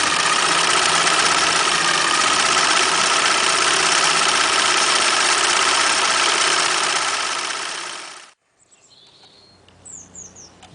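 Singer Futura 1000 electric sewing machine running at a steady speed with a constant whine, then slowing and stopping about eight seconds in. A few faint bird chirps follow near the end.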